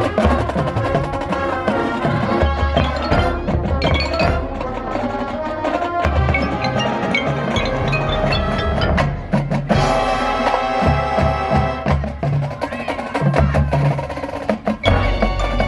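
Marching band playing, with drums and struck, bell-like mallet percussion standing out over sustained pitched parts and repeated low drum hits.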